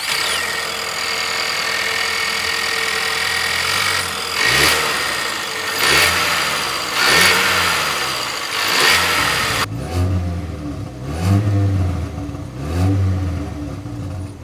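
Ford Maverick's 2.0-litre EcoBoost turbocharged inline-four running under the open hood, revved in about four quick blips that rise and fall. About ten seconds in the sound changes to the exhaust at the tailpipe: a deeper note, with further rev blips.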